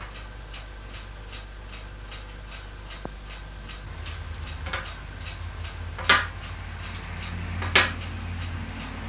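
Coins set down on a table, three sharp metallic clinks in the second half, the second and third the loudest, over a steady light ticking of about two and a half ticks a second, like a clock.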